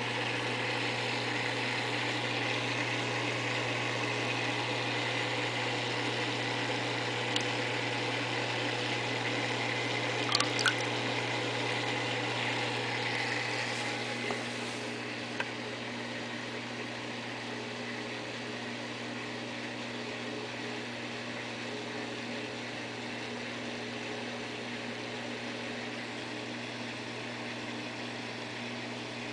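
Saltwater reef aquarium's pumps and circulating water running steadily over a constant low hum, louder in the first half and dropping slightly about halfway through. A few light clicks near the middle.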